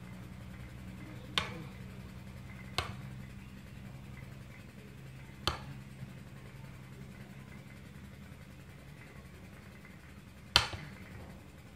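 Four sharp cracks at irregular intervals, the last one the loudest, over a steady low hum.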